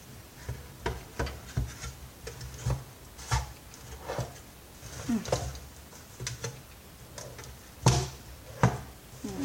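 Screwdriver poking and scraping through dirt and debris emptied from a vacuum cleaner bag: irregular light clicks and taps, with two louder knocks near the end.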